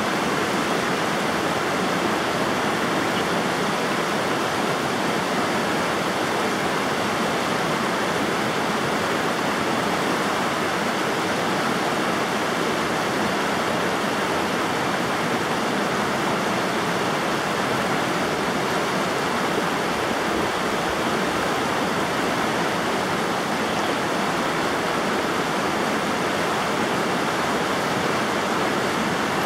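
River water rushing and splashing, a steady unbroken rush.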